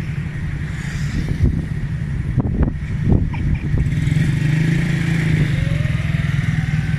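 Motorcycle engine running steadily close by, with a few short knocks about two to three seconds in and a slowly rising tone near the end.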